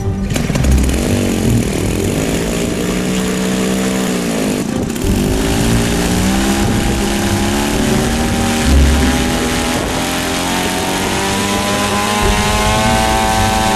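Small piston engine of the Spoonbill SP-80 UAV running on the ground. Its pitch dips and rises twice as the throttle is worked, then it settles into a steady run that creeps slightly higher near the end.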